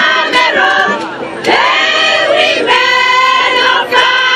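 A women's group singing a traditional Wimbum song together in chorus, with long held notes. The singing dips briefly about a second in, then carries on steadily.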